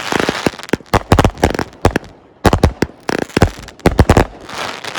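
Consumer firework cakes of a fused finale board firing in rapid volleys of sharp bangs with crackle between them, a brief lull about two seconds in.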